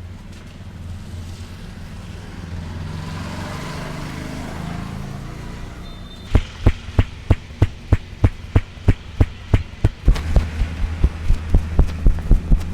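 Hands slapping and patting rhythmically in a barber's head massage: sharp even slaps about three a second starting about halfway in, coming faster with lighter taps between them near the end. A steady low hum underlies the first half.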